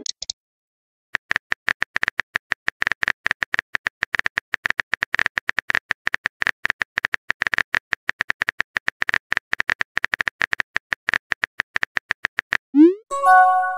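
Rapid keyboard-tap clicks of a texting app's typing sound effect as a message is typed out. Near the end, a short rising whoosh and a brief chime as the message is sent.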